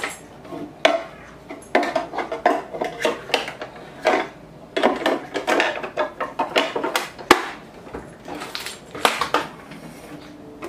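A plastic bag of small sewing-machine accessories crinkling and rattling as it is handled. Knocks come as the plastic sewing machine is shifted on a wooden tabletop, with one sharp knock about seven seconds in.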